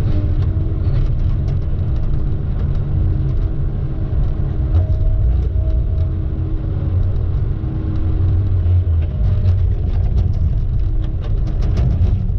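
A vehicle engine running steadily with a heavy low rumble, scattered with short clicks and rattles.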